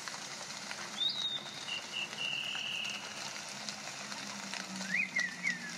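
Jungle nature soundscape: a steady hiss of rain and running water, with bird calls over it. One is a whistled call about a second in that holds a high steady note for over a second, and another is a short warbling call near the end.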